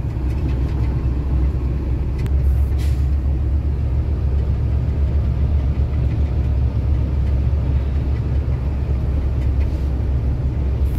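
Heavy truck driving, its engine and road noise making a steady low rumble inside the cab, with a short hiss about three seconds in.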